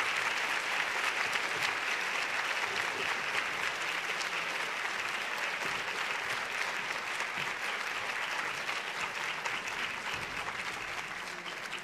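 An audience applauding steadily, dying away near the end.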